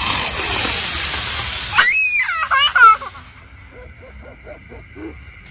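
A firework going off with a loud hiss that starts suddenly and lasts about two seconds. Near its end, a child gives a run of high squeals and laughter.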